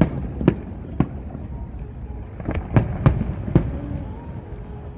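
Aerial fireworks shells bursting in a string of sharp bangs, about seven of them, bunched together around the middle, over a steady low rumble.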